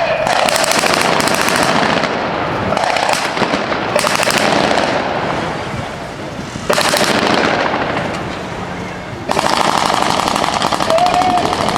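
Rapid automatic gunfire in several long bursts, with brief lulls between them, in a mock firefight.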